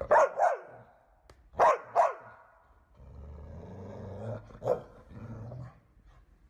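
A dog barks twice in quick succession, and a second later barks twice more. It then growls low for a few seconds, broken by one more bark.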